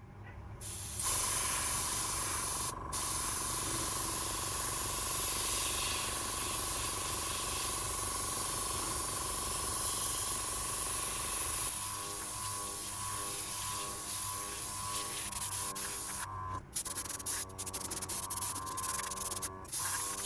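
Airbrush spraying spirit stain: a steady hiss of air and stain starts about a second in, with a steady thin tone underneath and a brief break shortly after. Near the end the spray comes in short on-off bursts as the trigger is pulled and released.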